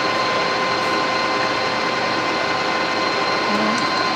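Colchester Triumph 2000 centre lathe running with the lead screw engaged for screw cutting: a steady mechanical whir with constant whining tones from the spindle drive and feed gearing.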